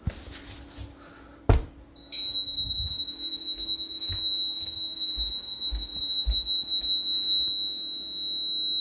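A sharp click, then a Honeywell home security alarm sounds a steady high-pitched tone from about two seconds in. The tone means the armed system has detected the back left kitchen window opening.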